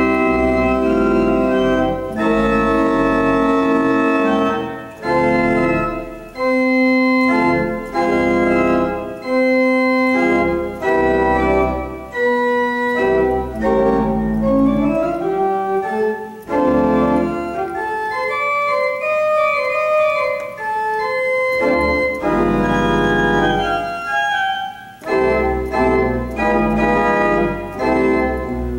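Two-manual organ with pedalboard playing held chords over deep pedal bass notes. A few seconds past the middle the bass drops out and a single line winds up and down, then the full chords come back.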